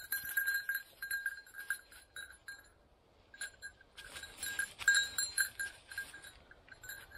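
A bird dog's bell ringing in short, irregular jingles as the dog moves, pausing briefly about three seconds in before ringing again.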